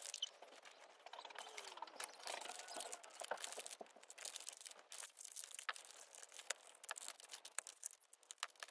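Faint rustling and crinkling of gift-wrapping paper being handled and folded around a present by hand, with scattered small clicks.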